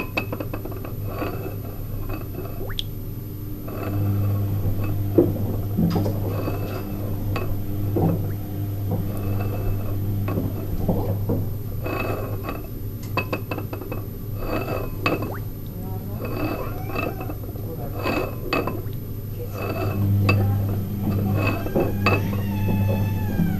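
A spotted auger shell (Oxymeris maculata) turning in a ceramic bowl of water as a screw pump: water sloshing and gurgling, with repeated clinks and knocks of the shell against the bowl. A steady low hum runs underneath.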